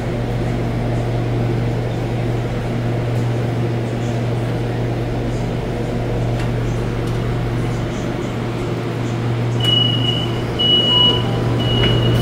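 A stationary Bombardier Movia 456 metro train gives off a steady low hum with its doors open. About ten seconds in, the door-closing warning starts: short high beeps repeated about once a second as the doors begin to close.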